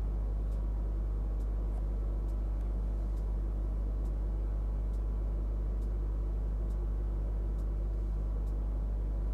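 Steady low electrical hum with a bed of hiss, and faint soft clicks about once a second.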